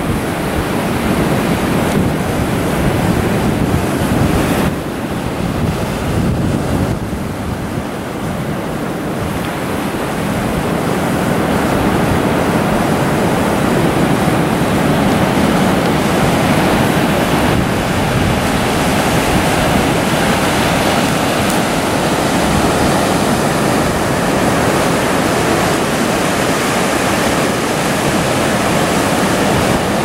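Heavy surf breaking and rushing on a beach, mixed with strong wind buffeting the microphone in a continuous loud roar.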